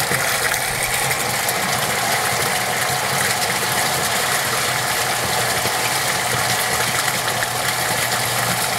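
Portable flushing unit's pump running steadily, circulating water through the tank and hoses, with liquid concentrate being poured from a gallon jug into the tank.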